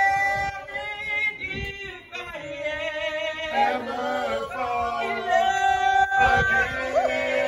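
Three men singing together without instruments, with long held notes, one voice into a handheld microphone amplified through a portable PA speaker.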